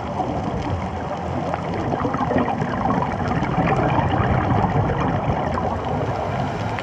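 Underwater ambience heard through an action camera's waterproof housing: a steady rushing water noise with many small crackles.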